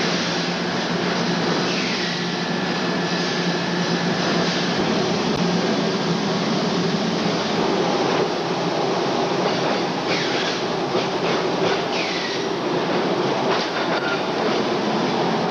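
Steady din of heavy shovel-plant machinery running, with a low hum under it and a few high metallic squeals that slide down in pitch, once about two seconds in and several times near the middle.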